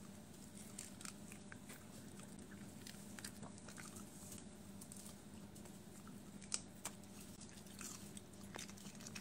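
A dachshund biting and chewing a strawberry held in a hand: faint, scattered chewing clicks and crunches, with two sharper clicks about six and a half seconds in.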